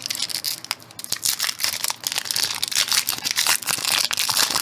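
Foil wrapper of a Pokémon TCG booster pack crinkling and tearing as it is pulled open by hand: a dense, irregular run of crackles.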